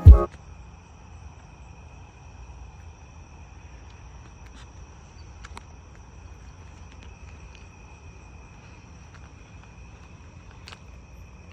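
A night chorus of crickets: a steady, unbroken high trill that holds at one pitch, with a few faint clicks. A brief loud thump comes at the very start.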